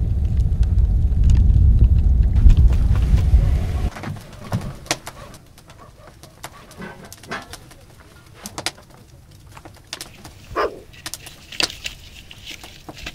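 A loud low rumble for about four seconds stops abruptly. Then, in quiet, split firewood is handled and stacked for the tent's hearth stove: scattered light knocks and clicks of wood on wood, with one short rising squeak-like tone about ten seconds in.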